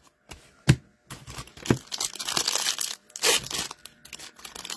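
Foil wrapper of a 2023-24 Upper Deck Extended hockey card pack being torn open and crinkled by hand, a crackling rustle in several bursts, after a single sharp click under a second in.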